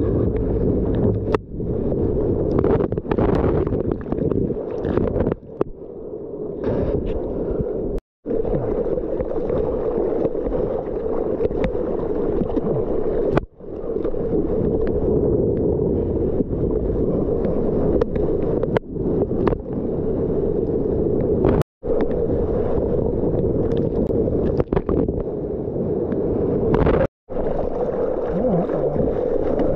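Rushing, splashing sea water and wind buffeting a waterproof GoPro's microphone as the surfboard is paddled and ridden through small waves, with gurgling as the camera dips into the water. The sound cuts out abruptly for a moment three times.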